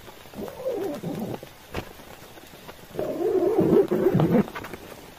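Two short, low, wavering vocal sounds, the second longer and louder, over steady rain on the tent.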